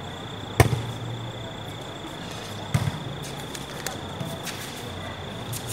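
A volleyball being struck: one sharp smack about half a second in and a quicker pair of hits near three seconds, over a steady high-pitched tone and low court murmur.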